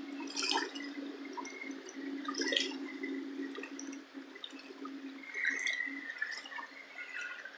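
Muddy floodwater rushing across a dirt road: a steady wash of running water with small splashes and gurgles, over a faint steady hum.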